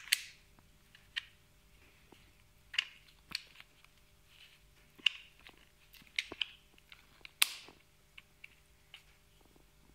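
Sharp clicks from the quick-change bit holder of a Bosch GDX 18 V-EC impact driver as a hex bit is worked in and out of it by hand, a dozen or so at uneven intervals, the loudest near the start and at about three, five and seven and a half seconds in.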